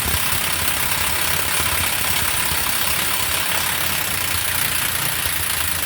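Craftsman impact wrench running in one long, steady burst that stops suddenly near the end.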